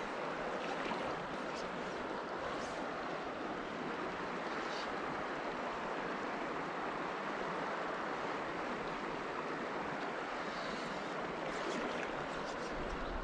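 Steady rush of a shallow, riffled river flowing, with a few faint brief ticks above it.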